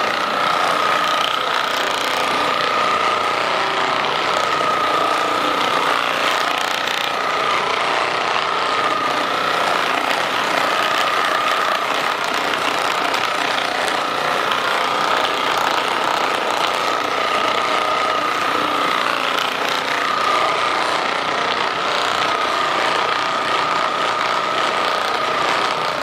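Handheld percussion massage gun running steadily on the back muscles: a rapid buzzing hammer with a steady motor whine that cuts off suddenly near the end.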